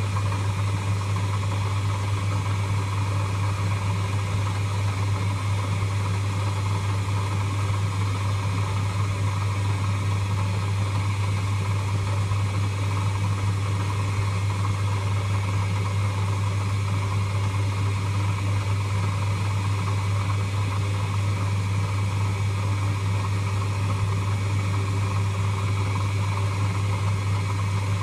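Lathe running steadily with a strong, even hum; it was switched on just before and does not change.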